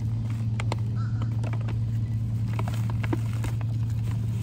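Foil-lined bag of flake pipe tobacco crinkling in short, scattered crackles as a hand digs into it, over a steady low hum of an idling vehicle engine.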